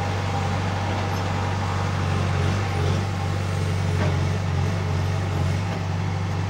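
Diesel engine of a Case 770 NXE backhoe loader running steadily as a low drone while the backhoe digs a trench.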